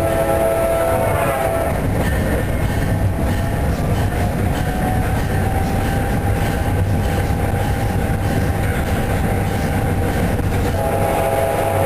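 Steady rumble of a passenger train rolling on the rails. The EMD F40 locomotive's horn sounds a chord for the first couple of seconds, then sounds again near the end.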